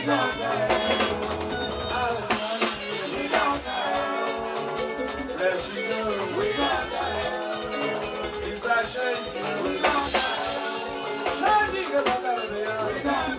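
Band music with a drum kit and hand percussion keeping a steady beat under melodic lines.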